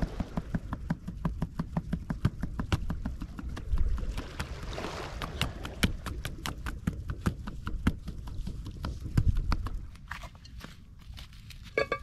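Rapid, irregular clicking and crackling over a low rumble, which eases off near the end, followed by a brief ringing tone just before the end.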